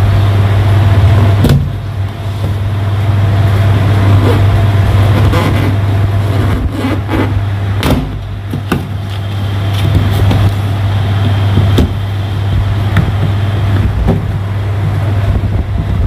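A loud, steady low machine hum, with scattered knocks and scrapes from hands handling the base of a washing machine.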